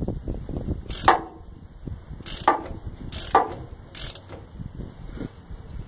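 Hand ratchet wrench clicking rapidly as it winds out the caging bolt of a spring-brake chamber to release the parking brake, with a few louder sharp clacks about a second apart.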